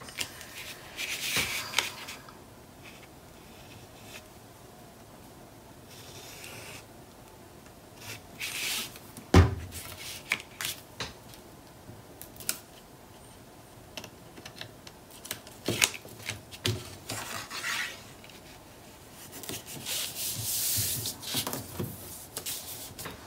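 Hands handling cardstock on a cutting mat: paper sliding and rustling, and a stylus tool rubbed along the edge of a freshly glued paper pocket to press it down. One sharp knock about nine seconds in.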